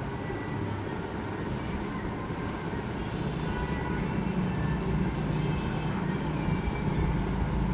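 Plastic toy truck pushed by hand along a paper-covered tabletop, its wheels making a steady low rumble that grows a little louder from about three seconds in.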